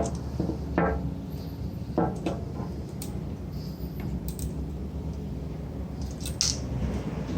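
Scattered light clinks and knocks of small metal parts being handled, over a steady low hum.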